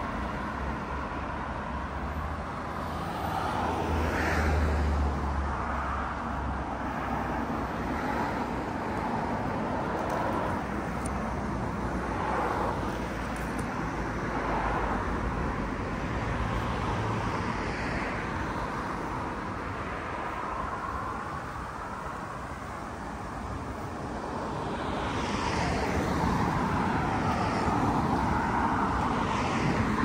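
Street traffic: cars passing along a road, a steady wash of tyre and engine noise that swells and fades as each goes by. A low engine hum comes a few seconds in, and a louder car passes near the end.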